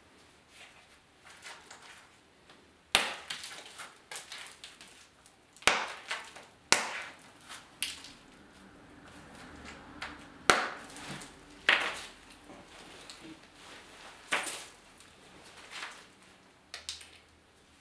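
Flintknapping: a stone blade being shaped by percussion, with about six sharp clacks as flakes are struck off, a second or a few seconds apart, and softer scraping and rustling between the strikes.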